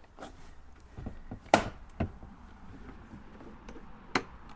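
Plastic interior door trim panel of a GMC Acadia being pried and tugged against its retaining clips: a few scattered clicks and knocks, the sharpest about a second and a half in and another near the end.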